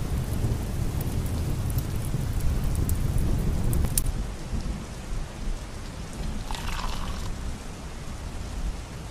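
Steady rain with a low rumble of thunder through the first half, fading out, and a few sharp drop-like ticks. A brief higher-pitched sound comes about seven seconds in.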